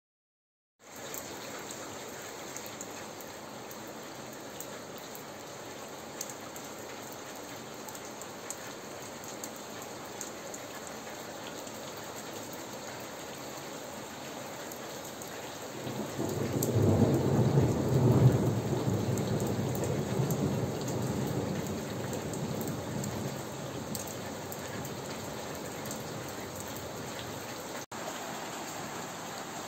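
Steady thunderstorm rain hissing, with scattered drops ticking. About sixteen seconds in, a deep thunder rumble swells, is loudest for a couple of seconds, and rolls away over the next several seconds.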